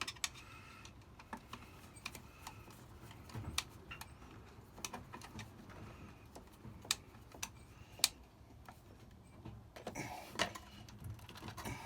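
Irregular small clicks and taps of hand tools and copper wire being worked at the terminals of a double switched socket outlet, as the wire ends are trimmed and fitted. Two sharper clicks stand out about seven and eight seconds in.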